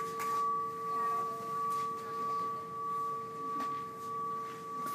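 Brass end-of-treatment bell in a cancer care unit ringing on after being struck: a steady two-note hum that swells and fades evenly, a little under twice a second. Rung, it marks the end of a patient's cancer treatment.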